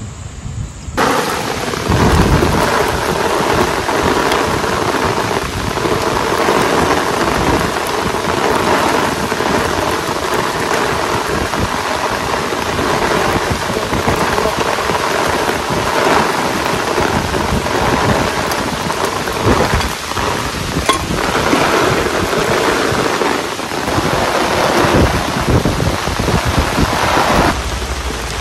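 Heavy rain pouring down, a dense steady hiss that starts abruptly about a second in.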